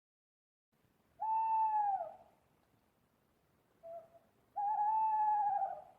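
An owl hooting: two long hoots about three seconds apart, each falling in pitch at the end, with a short soft note between them.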